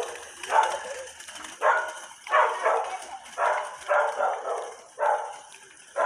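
A dog barking repeatedly, about six short barks spaced roughly a second apart.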